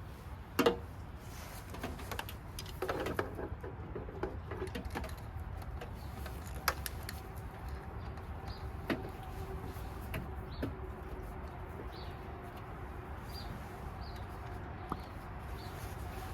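Scattered clicks and knocks of equipment being handled during setup, the loudest about half a second in and a cluster around three seconds, over a low rumble, with a faint steady hum setting in about five seconds in.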